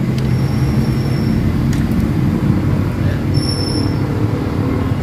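A motor or engine running steadily with a low hum, with two brief high-pitched squeaks, one about a third of a second in and one past the three-second mark.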